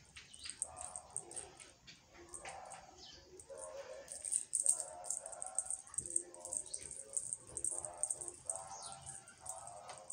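A small cat toy rattling as it is shaken in short, repeated bursts.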